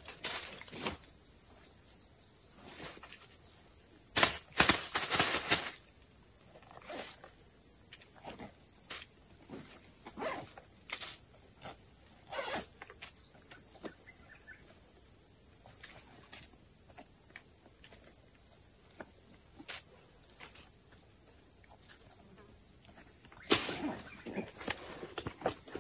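Steady high-pitched insect drone from the surrounding forest, with rustling, zipping and knocks as a backpack is handled and packed; the handling is loudest about four to five seconds in and again near the end.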